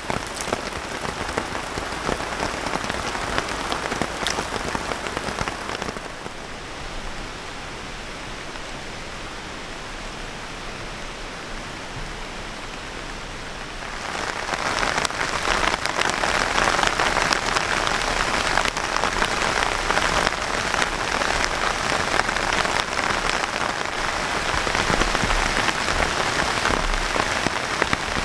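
Heavy rain falling steadily. It softens for several seconds in the middle, then comes back heavier.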